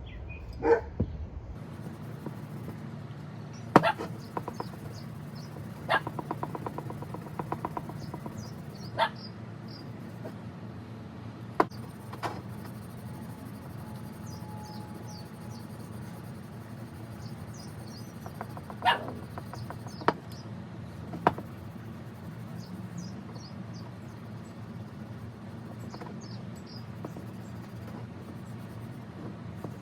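Handling and rag-polishing of a cast metal coin bank: a few sharp knocks and clicks, with a short quick rattle, over a steady low hum and faint high squeaks.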